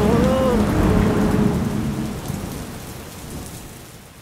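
Thunderstorm sound effect: steady rain with a low rumble of thunder, fading out steadily from about a second in.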